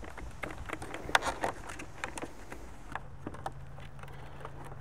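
Light plastic clicks and knocks from handling a plastic pump sprayer in a plastic milk crate, with a quick run of clicks about a second in. A low steady hum comes in about three seconds in.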